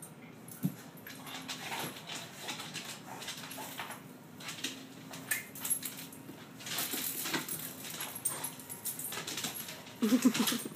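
A dog scrabbling and pouncing on a hardwood floor as it plays with an insect: claws clicking and tapping on the boards, with soft whimpering. Near the end comes a short, louder dog cry.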